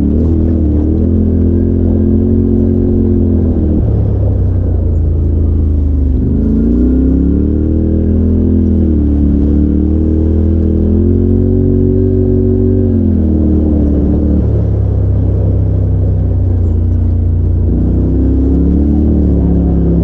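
Polaris RZR side-by-side's engine running steadily as it drives a trail, its pitch rising and falling several times with the throttle over a constant low drone.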